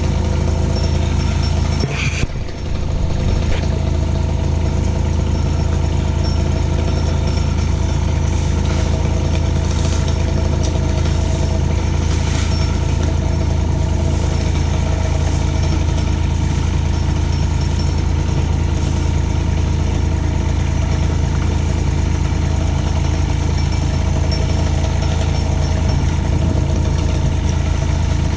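An engine running steadily at an even speed, with a brief knock about two seconds in.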